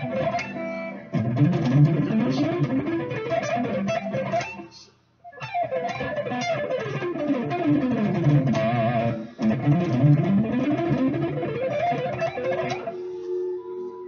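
Electric guitar playing a fast A natural minor lick in sextuplets, quick runs of notes sweeping down and up the scale in repeating sequences. The playing breaks off briefly about five seconds in and again near nine seconds, then stops near the end with a single note left ringing.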